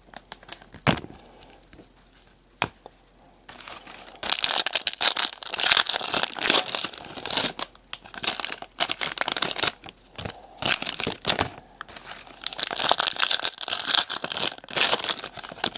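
Trading-card pack wrappers being torn open and crinkled by hand. A few light clicks in the first seconds, then steady crinkling and tearing from about four seconds in.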